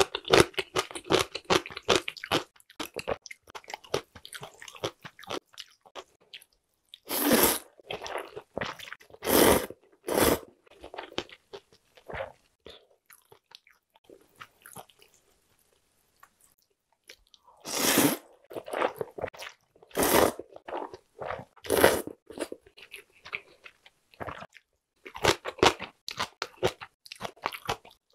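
Close-miked eating: crunchy chewing of pickled radish at first, then several loud slurps of thin wheat noodles in broth, each about half a second long, with wet chewing between and more chewing near the end.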